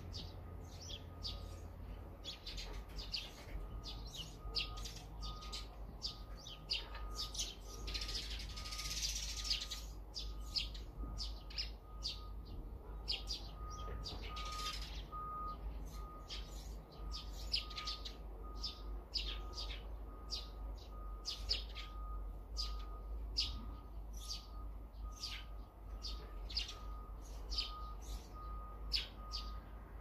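Small wild songbirds chirping: many short, quick high calls, several birds overlapping, with a thin note repeated at an even pace underneath.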